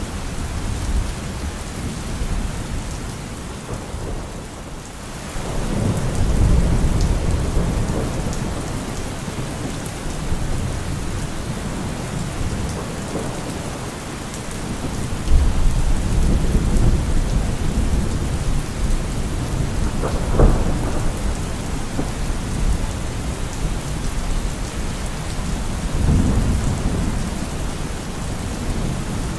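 Heavy rain pouring steadily while thunder rumbles low in several long rolls. The thunder swells about five seconds in, again around the middle and near the end, with a sharper crack about two-thirds of the way through.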